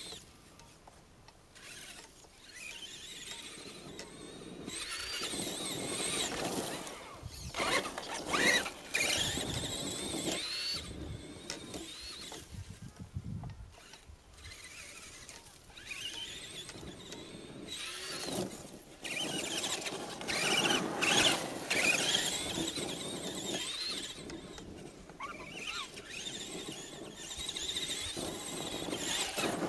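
Traxxas Summit RC truck's electric motor and gearbox whining, the pitch rising and falling with the throttle in several bursts as it drives over sand, with quieter lulls between.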